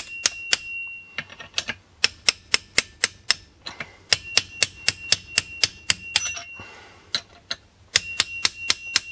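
Socket ratchet clicking in quick runs of about five clicks a second, each click with a thin metallic ring, broken by short pauses between strokes, as a chainsaw clutch is wound onto a tight crankshaft thread.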